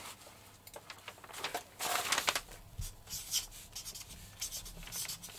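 Marker pen writing on brown paper: a run of short, irregular scratchy strokes, with the paper rubbing under the hand.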